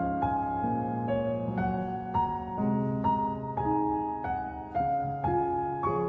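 Background piano music: calm, evenly paced notes struck about twice a second, each ringing on and fading.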